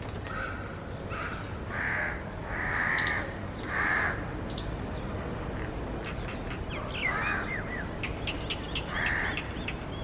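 Crows cawing: a series of about seven harsh caws, some close together, with a lull in the middle.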